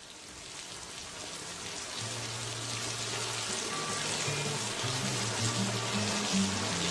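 Steady rain-like hiss fading in, joined about two seconds in by a slow line of low, held music notes.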